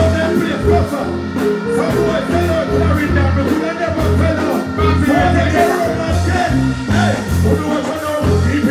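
Live stage music over a festival sound system: a bass-heavy backing track with a repeating bass line, and a performer's voice over it through the microphone.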